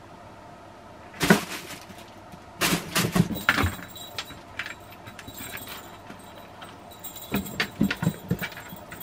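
A cat playing with a fabric play tunnel and floor toys: short bursts of rustling and light knocks, about a second in, around three seconds in, and again near the end.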